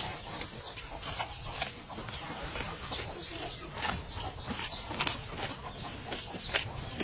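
Birds calling in quick short chirps, each sliding down in pitch, several a second, with scattered sharp clicks among them.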